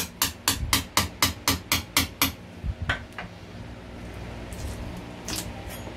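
Rapid, even hammer blows, about four a second, stopping a little over two seconds in, then a couple of single knocks.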